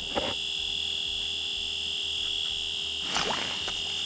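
A steady high-pitched whine with fainter higher tones above it, unbroken throughout, with a brief rustle about three seconds in.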